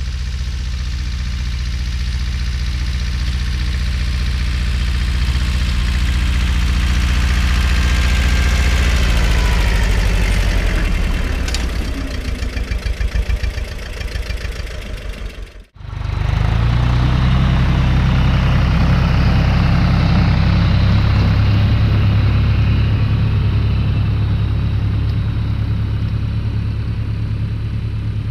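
Tractor engine running steadily under load as the tractor drives past close by, fading a little after it goes by. A sudden cut about halfway through, then a tractor engine running steadily again.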